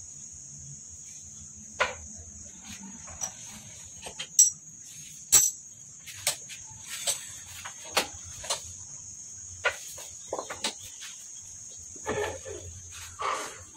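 Sharp metal clinks and knocks, scattered irregularly, as the steel fork tubes and triple clamp of a Yamaha Jupiter Z are shifted and set on the press blocks, with a clattery stretch near the end. A steady high-pitched shrill hum runs underneath.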